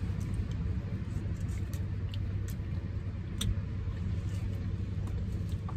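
Steady low rumble inside a car cabin, with faint scattered clicks and taps from eating and handling food; one sharper click comes about halfway through.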